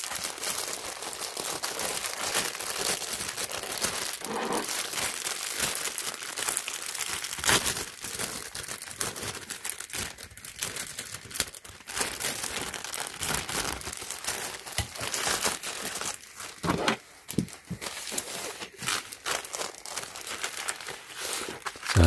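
Clear plastic bag and poly mailer crinkling and rustling as a T-shirt is handled and pulled out of them, with sharp crackles throughout.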